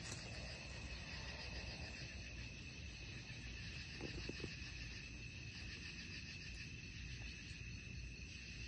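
A chorus of night insects trilling steadily at a high, even pitch, over a low rumble of background noise.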